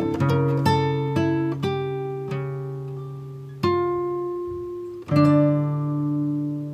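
Background music: an acoustic guitar plucking a slow run of notes, each ringing and dying away, with louder chords struck about three and a half and five seconds in.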